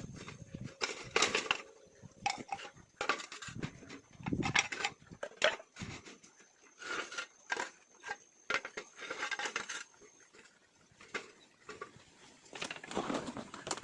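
Irregular clatter of short knocks and scrapes, like hard objects being handled and bumped together.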